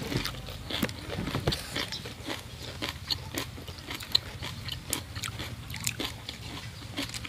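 Close-up crisp crunching and chewing of a bitten raw cabbage leaf, as irregular crackly crunches throughout.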